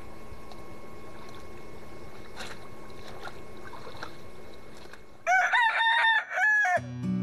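A rooster crowing one loud cock-a-doodle-doo about five seconds in, after a stretch of faint, steady background noise. Acoustic guitar music starts right at the end.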